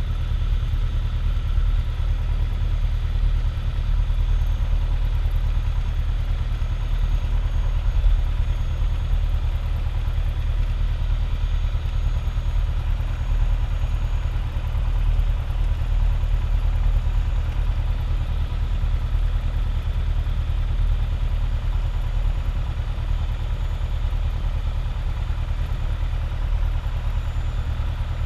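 Single-engine light aircraft's piston engine and propeller running steadily at low power while taxiing, heard from inside the cabin as an even low drone.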